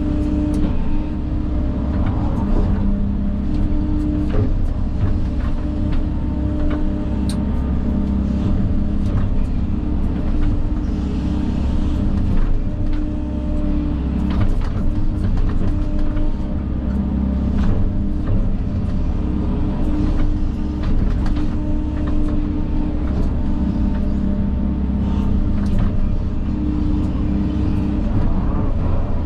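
Diesel engine of a heavy earth-moving machine running steadily under work, with a constant engine hum and scattered knocks and clicks throughout.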